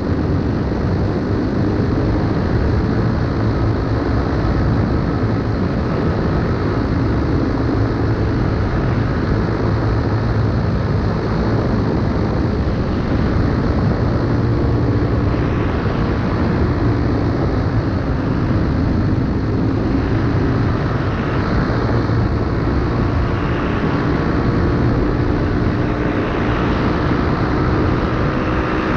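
Paramotor engine and propeller running steadily in flight, a constant drone with wind noise over it.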